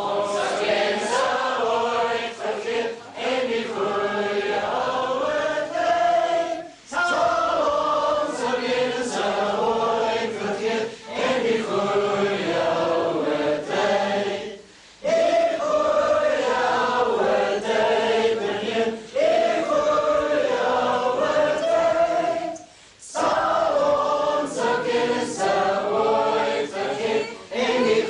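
A choir singing, in long phrases with a brief break about every eight seconds.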